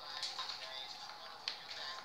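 Faint background music, with two light clicks, one near the start and one about a second and a half in.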